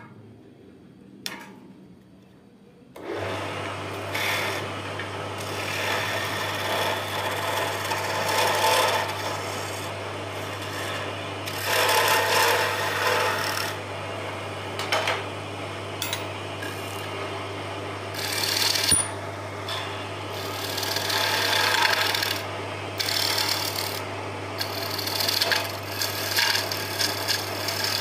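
Wood lathe starting up about three seconds in, its motor humming steadily, while a hand-held turning tool scrapes and cuts the spinning wooden spindle in repeated surges.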